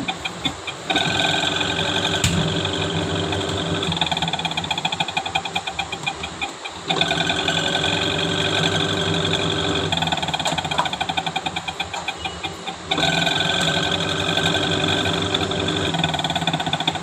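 Panasonic Active Foam top-loading washing machine running: a motor hum that swells for about three seconds in every six, weaker and rougher in between, with a fast rattle throughout. It is the noise fault that a worn gearbox is blamed for.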